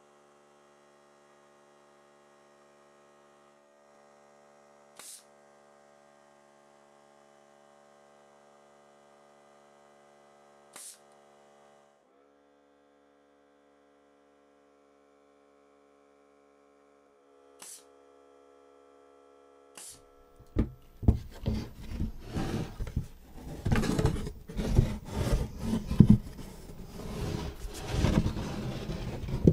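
Faint steady electrical hum with a few brief clicks. About two-thirds of the way in, loud irregular rubbing and knocking of a wooden planter box being handled on a workbench takes over.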